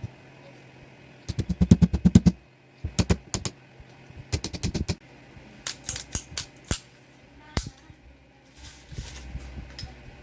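Small metal parts of a 1911 pistol clicking and rattling in bursts of rapid clicks, separated by short pauses, as the gun is handled and worked on.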